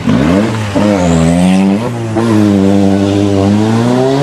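Rally car engine at high revs as the car accelerates hard up the stage. The engine note drops sharply at the start and again about two seconds in, climbing in between and afterwards, as it goes up through the gears.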